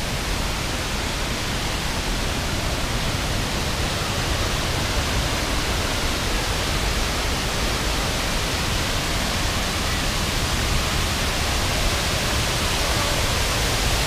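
Steady rushing noise of a waterfall, even and unbroken.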